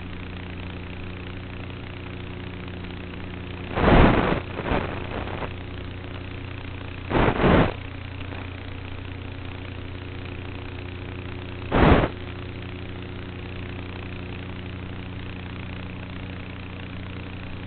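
E-Flite Apprentice S RC plane's electric motor and propeller running at a steady pitch. Short loud bursts of rushing noise come about four seconds in, again at about seven seconds, and once more at about twelve seconds.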